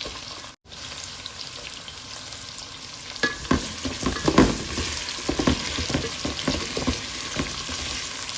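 Onions frying in hot oil with whole spices and ginger-garlic in a pot, a steady sizzle. From about three seconds in, utensil knocks and scrapes against the pot join the sizzle as it is stirred, and the sound grows louder. The sound cuts out for an instant just after the start.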